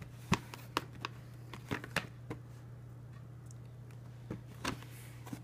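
Cardboard camera box handled and turned over in the hands: light, sharp taps and rubs, bunched in the first two and a half seconds with a few more near the end, over a steady low hum.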